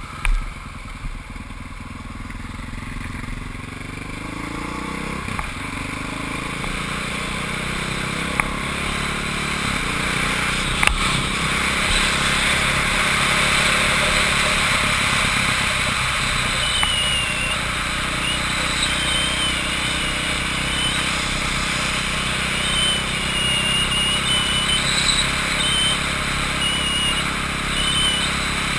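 Motorcycle engine heard from an onboard camera, rising in pitch over the first few seconds as it pulls away, then running at speed. Wind rush grows louder with the speed and holds steady.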